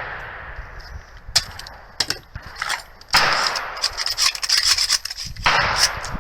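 Metallic clicks and rattles from the action of a PWS MK216 (AR-10 pattern) rifle being handled to clear a stovepipe jam, a spent case caught in the ejection port, with the rifle failing to cycle. Two loud gunshots with echoing tails come in, about three seconds in and again near the end.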